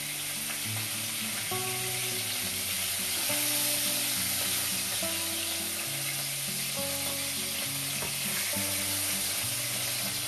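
Pieces of floured cod sizzling steadily as they fry in hot olive oil in a pan.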